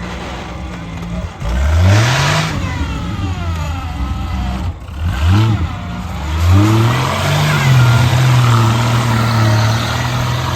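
Off-road 4x4 vehicle's engine revving hard: the engine note rises sharply three times, then holds at high revs through the second half.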